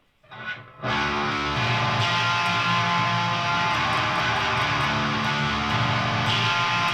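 Electric guitar through a Siren Pedals Eligos HM-2-style 'chainsaw' heavy metal distortion pedal and a tube amp into a 4x12 cabinet, playing a heavy, dark distorted riff that starts about a second in. The guitar's volume knob is rolled back for a woofier distortion tone.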